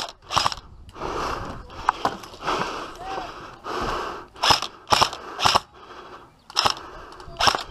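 Airsoft gunfire: about six sharp single snaps at irregular intervals.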